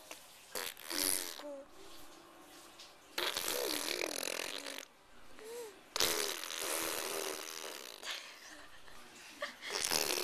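A young child blowing raspberries with his tongue: several noisy spluttering bursts, the longest lasting one to two seconds, with short babbling vocal sounds between them.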